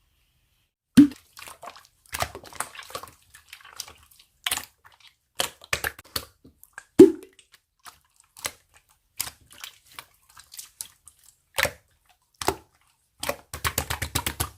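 Slime being squished and poked by hand, giving irregular wet clicks and pops, with a quick run of crackling pops near the end.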